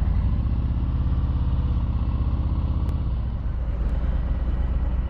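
Harley-Davidson Low Rider S's V-twin engine running steadily at low revs, a fast even pulse of exhaust beats, picked up by a helmet-mounted microphone.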